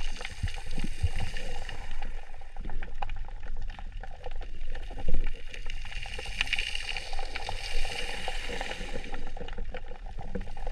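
Water moving around the camera with a steady hiss and many scattered sharp clicks and crackles.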